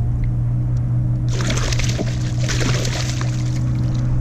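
Small hooked pike thrashing and splashing at the water's surface beside the boat for about two seconds, over the steady low hum of the boat's motor.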